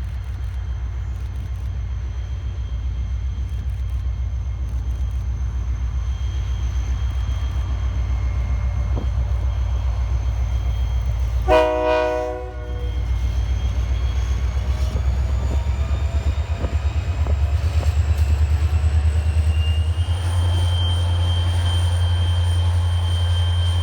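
Diesel locomotive air horn sounding one short blast about halfway through, over a steady low rumble.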